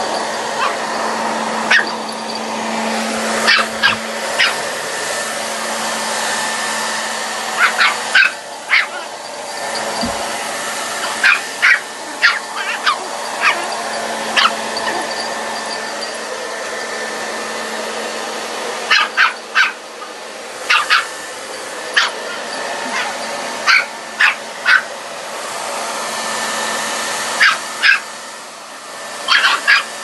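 A small puppy barking and yapping in quick bursts of several sharp barks at a hair dryer, which runs throughout with a steady blowing hum.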